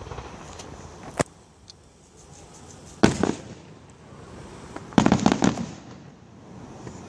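Fireworks going off: a single sharp bang about a second in, a loud burst with a short rattling tail about three seconds in, and a rapid cluster of bangs around five seconds in.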